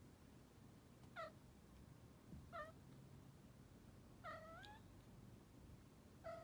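Munchkin kitten meowing softly four times, short high meows a second or two apart; the last two rise in pitch at the end.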